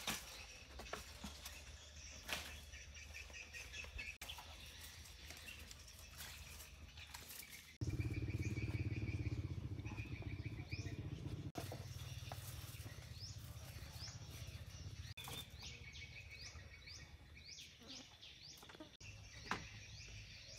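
Outdoor ambience with birds chirping: short rising chirps repeat through the second half. A low rumble comes in abruptly about eight seconds in and slowly fades, the loudest part, with scattered soft clicks throughout.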